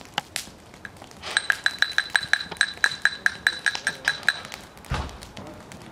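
Rapid high metallic ringing, like a small bell shaken, about five or six strokes a second for some three seconds. A single dull thump comes near the end.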